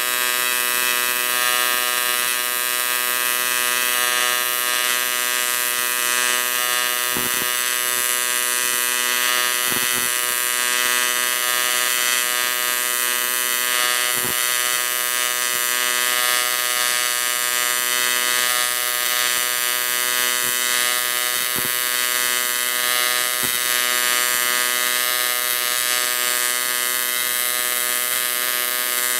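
AC TIG welding arc on thick aluminum, a steady, continuous buzz with a hiss over it. A few faint ticks are heard now and then.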